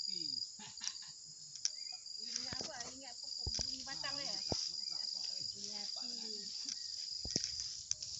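Insects chirring in a steady high-pitched chorus, with a few sharp clicks and faint wavy voice-like sounds beneath.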